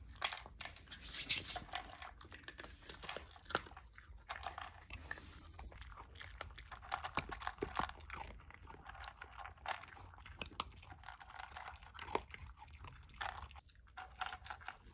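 Two dogs eating, smacking their lips and chewing food in quick, irregular bites.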